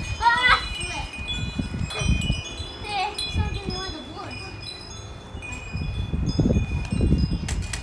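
Wind chimes ringing: many clear tones at different pitches, each struck and left to ring, overlapping one another. Underneath runs a low rumble that grows louder near the end.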